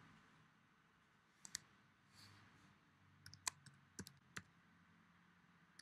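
Faint, sharp typing clicks as a name is entered letter by letter: a pair about a second and a half in, then a quick run of about half a dozen taps a little later.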